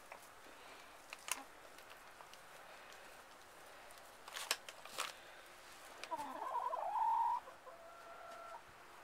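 A hen in a hay nest box calls once about six seconds in, a wavering note that settles into a held one, followed by a fainter, shorter held note; a few sharp taps come earlier.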